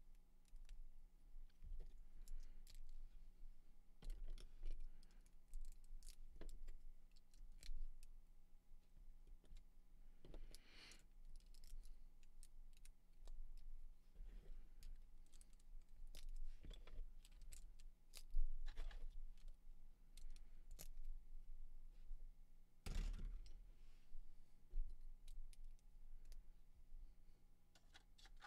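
Small plastic Lego hinge bricks and clips clicking and tapping irregularly as they are handled and pressed together, with a few slightly longer rattles, over a faint steady hum.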